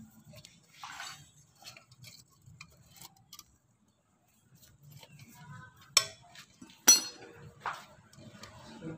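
Metal wrench clinking and clicking against the clutch parts of an old Honda Supra motorcycle as a nut is worked tight, with sharp metallic clinks about six and seven seconds in.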